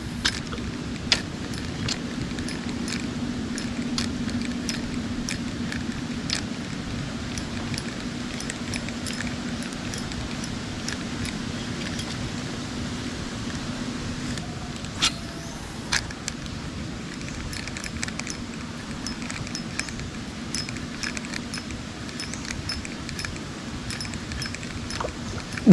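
Shimano Sienna 1000 FG spinning reel being cranked to retrieve a lure: a steady low whir with many light clicks. The whir fades a little past halfway, where two sharper clicks come a second apart.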